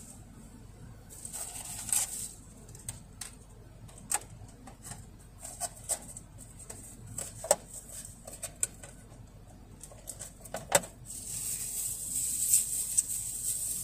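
Scattered clicks and crinkles of plastic food packaging being handled and closed up after a meal, then a steady hiss that grows louder from about eleven seconds in.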